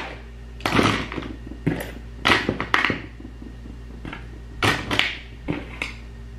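Irregular knocks and clatters of small hard makeup items being picked up and set down on a tabletop, about eight in all, in loose pairs.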